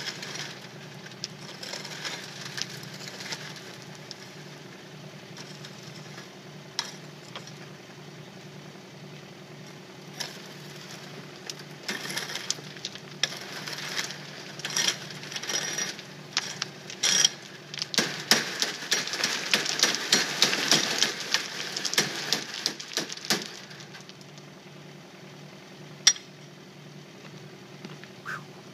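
Kubota K008-3 mini excavator's small three-cylinder diesel running steadily while stony soil is shaken through a screen: stones rattle and clatter on metal, building to a dense rattling for several seconds past the middle, then a couple of single knocks near the end.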